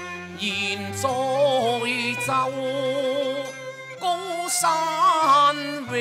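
Cantonese opera music: a melody with wavering pitch over low held notes, with a few sharp percussion strikes.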